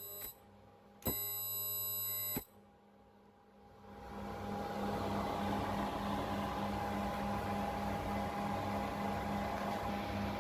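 Ultrasonic welding transducer and its generator under test: a buzzing electronic tone clicks on about a second in and cuts off over a second later. From about four seconds in, a steady hum with a held whine and hiss runs.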